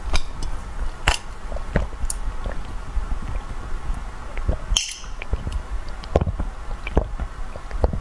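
Close-miked gulps and swallows of green juice drunk from a glass mug, with a sharp mouth or throat click about once a second.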